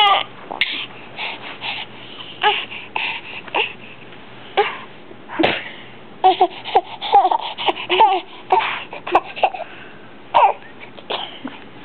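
Six-month-old baby babbling and laughing in short spurts of high voice sounds and breathy noises, separated by brief quiet gaps.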